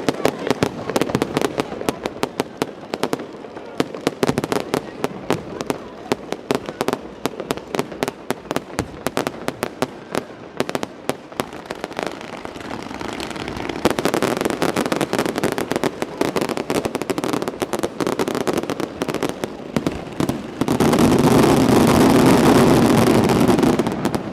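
Many fireworks going off at once: a dense stream of sharp bangs and crackles that thickens from about halfway, with a loud continuous rush for the last few seconds.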